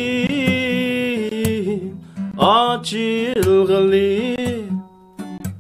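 A man singing in long held notes, accompanied by a Yamaha acoustic guitar. He sings two phrases with a short break between them, and the second fades out near the end.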